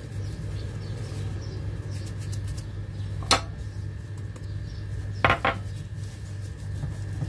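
A bowl clinking against a cooking pan while its contents are tipped out over a chicken: one sharp clink about three seconds in, then two quick ones about two seconds later. A steady low hum runs underneath.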